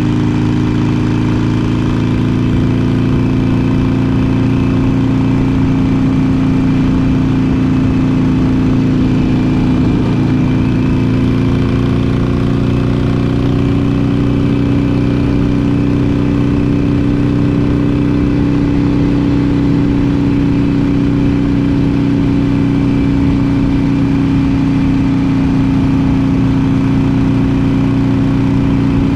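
Harley-Davidson Iron 883's air-cooled 883 cc V-twin running through Vance & Hines Short Shot slip-on mufflers while riding at a steady throttle, its note slowly rising a little in pitch.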